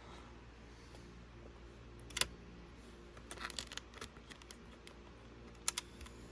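Faint clicks and light scratching from handling a Sony WM-FX28 cassette Walkman's small plastic mechanism, over a low steady hum. There is a single click about two seconds in, a quick cluster a little past halfway, and a sharp double click near the end.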